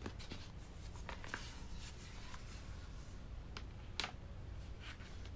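Hands folding and handling a silicone folding folio case for an iPad: soft rubbing and brushing of the cover flaps, then a few light taps and clicks as the case is closed and pressed flat, the sharpest about four seconds in.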